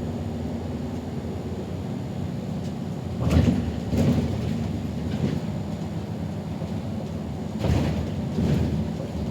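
Inside a city bus on the move: steady low rumble from the engine and road, with two pairs of thumps and rattles a few seconds apart as it goes over bumps.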